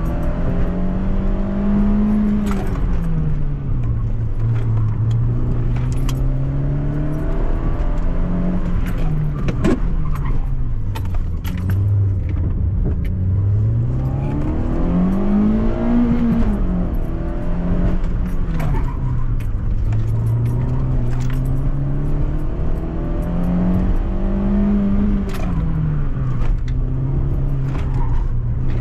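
Citroën C2 VTS's 1.6-litre sixteen-valve petrol engine under hard driving, heard from inside the cabin, its note rising and falling again and again as the car accelerates and lifts through a slalom course. Short clicks and rattles come through over the engine.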